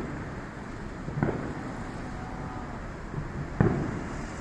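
Firework shells bursting: two sharp booms about two and a half seconds apart, over steady background noise.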